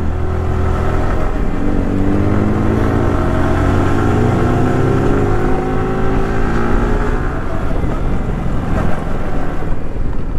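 Yamaha R15's single-cylinder engine on the move, its pitch climbing steadily for several seconds as the bike accelerates, then easing off about three-quarters of the way through. Wind rushes over the rider's microphone throughout.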